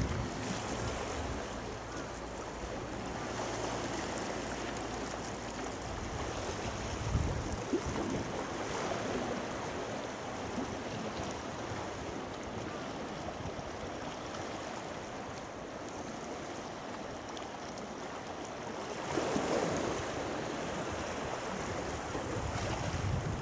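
Small waves washing against the rocky shore, with wind rumbling on the microphone through the first several seconds. A louder wash comes about nineteen seconds in.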